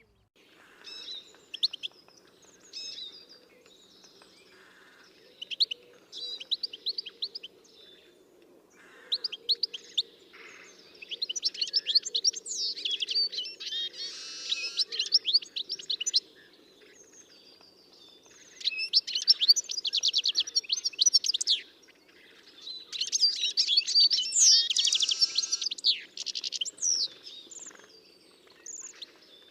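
Small birds chirping and twittering in rapid high bursts, coming in bouts a few seconds long with short pauses between them, over a faint steady low hum.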